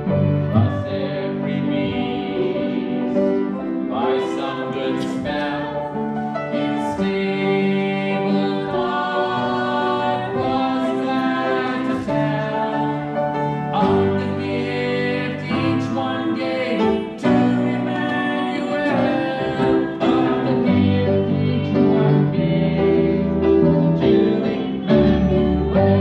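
Live piano music with a singer, one continuous piece without a pause.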